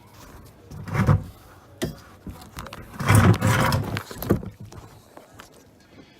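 Metal scraping and knocking from tools working on the car's rear brake caliper bolts. There are two rough bursts of sound, one about a second in and a longer one from about three to four and a half seconds in, with a sharp click between them.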